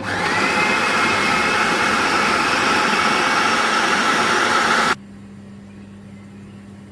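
Electric blender running for about five seconds, grinding fresh mint, coriander, green chillies and yogurt into mint sauce, with a brief spin-up at the start and a sudden stop when it is switched off.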